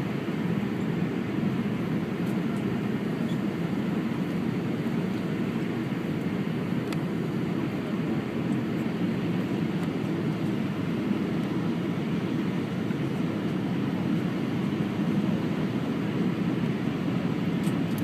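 Steady rushing noise inside the cabin of an Airbus A319 airliner, the drone of its engines and airflow, holding even throughout.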